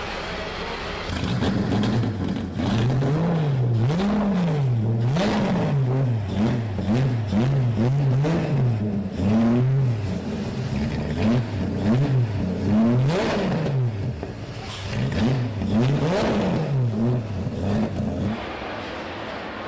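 Supercharged V12 in a Shelby Cobra-style roadster, parked and revved over and over: the engine note climbs and falls in quick blips, about one or two a second, starting about a second in and settling back near the end.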